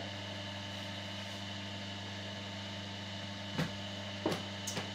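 Steady electrical hum, with a few sharp clicks or knocks about three and a half to five seconds in.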